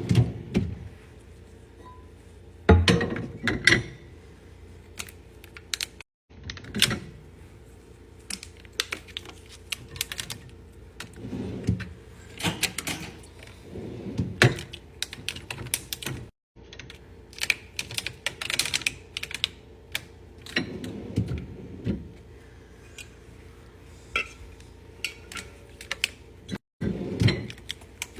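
Irregular clicking, clattering and knocking of plastic containers, lids and fridge shelves being handled and set down during refrigerator cleaning.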